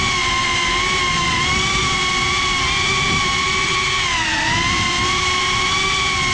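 Motors and ducted propellers of a GEPRC CineLog 35 FPV cinewhoop whining as it hovers and drifts. The pitch holds steady, then dips briefly with the throttle about four seconds in, over a low rumble.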